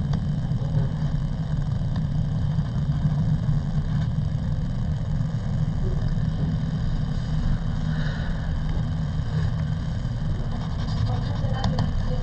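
Steady low mechanical hum, like a motor or engine running, with no change in level.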